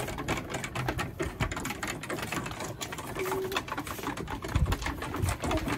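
Hens pecking fast at feed in a trough: a dense, rapid run of beak taps and clicks. One hen gives a brief call about three seconds in.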